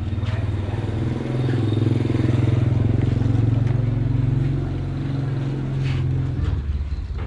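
Motor vehicle engine running as it moves at low speed, picking up a little about a second and a half in and easing off again near the end.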